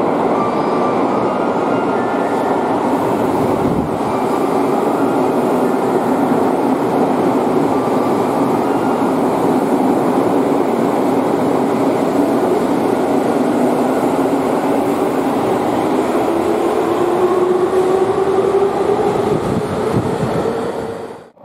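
Electric subway train running along an underground station platform, a loud steady rumble of wheels and running gear, echoing in the station. A low whine rises slowly in pitch through the second half, and the sound cuts off suddenly at the end.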